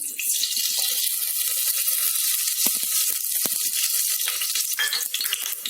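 Cooking oil sizzling in a hot pressure cooker base, a steady hiss with scattered small crackles.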